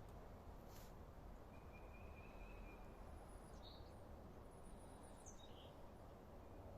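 Near silence: room tone, with a faint click near the start and a few faint high whistle-like tones in the middle, two of them gliding downward.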